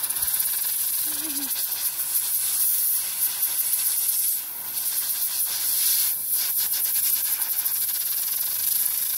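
Compressed air hissing from an air-compressor blow-gun nozzle aimed at a fidget spinner, driving it at high speed. The hiss is steady, with two short dips about midway.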